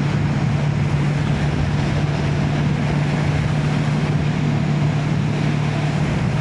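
Motorcycle engine running at a steady, unchanging pitch while riding along, under a constant rush of wind and road noise.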